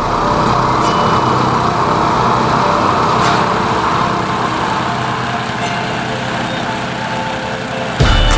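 Hot air balloon propane burner firing, a dense rushing noise that eases after about three and a half seconds, over the steady running of a small petrol engine, typical of a balloon inflator fan.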